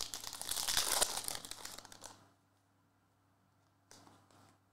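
Foil trading-card pack wrapper being torn open and crinkled for about two seconds, followed near the end by a brief softer rustle.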